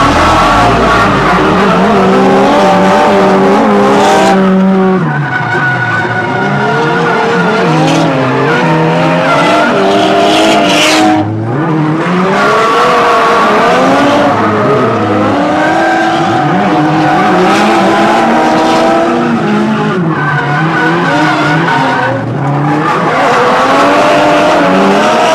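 Drift car engine revving hard, its pitch swinging up and down as the throttle is worked, over tyre squeal and screech from the sliding tyres. The loudness dips briefly three times.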